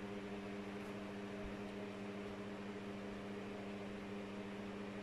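Pedestal electric fan running: a steady motor hum with an even airy hiss.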